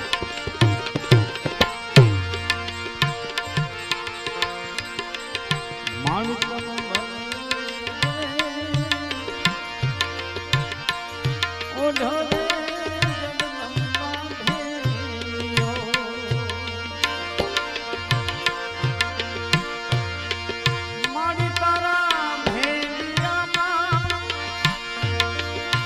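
Live devotional bhajan music: a harmonium holds sustained chords while tabla keep a steady beat, the bass drum strokes bending down in pitch. A male voice sings long, wavering notes at times from about six seconds in.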